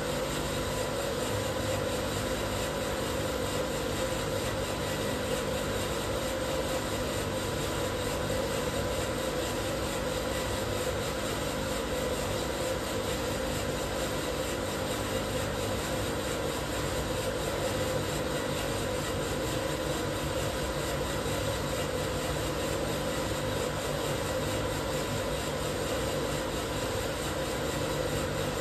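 Probat Probatone P12 drum coffee roaster running steadily mid-roast: an even machine hum with a few faint steady tones, and no bean cracks.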